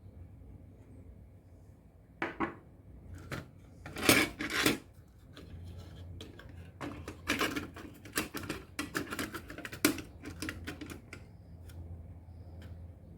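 Irregular clicks and light clatter of small hard parts and tools being handled on a workbench, over a low steady hum, with the loudest knocks about four seconds in.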